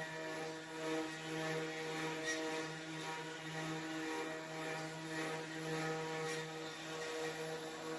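CNC wood router running steadily as it carves, a constant machine hum with several overtones and a few faint ticks.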